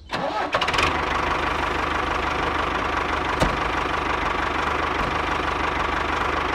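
Tractor engine sound catching about half a second in, then running steadily with a rapid, even knocking beat. A single sharp click a little past three seconds.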